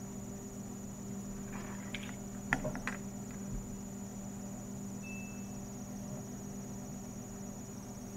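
Steady electrical hum with a constant high-pitched whine, and a few faint soft taps a little past two seconds in.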